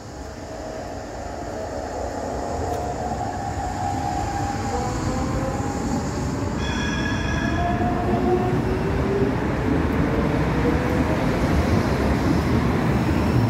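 Frankfurt U-Bahn light-rail train running into the station and past close by, its rumble growing steadily louder, with tones that glide in pitch. A brief high-pitched tone sounds about halfway through.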